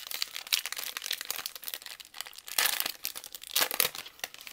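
Donruss Optic trading card pack wrapper being torn open and crinkled by hand: a dense crackle with two louder bursts in the second half, then it stops.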